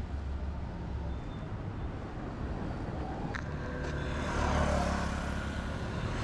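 Road traffic: passing vehicles' engines and tyres give a steady low rumble, and one vehicle grows louder as it goes by about four seconds in.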